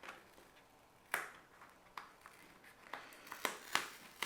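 Handling noises of a foam sheet being fitted into a mechanical keyboard case: about six short, separate clicks and rustles, more frequent toward the end.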